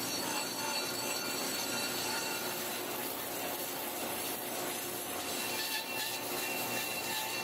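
Steady rubbing and scraping noise that runs on without a break.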